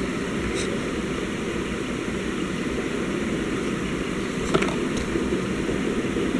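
Steady background rumble and hiss, with a single click about four and a half seconds in.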